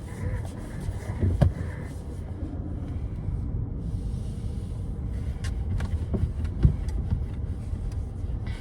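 Car moving while being backed up, heard from inside the cabin: a steady low rumble with a few sharp knocks.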